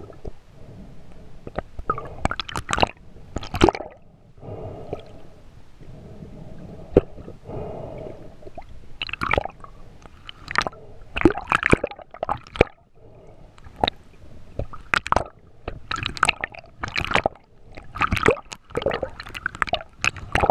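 Underwater water noise around a camera housing: gurgling and swishing with many irregular sharp crackles and pops, as a diver swims up and reaches the surface near the end.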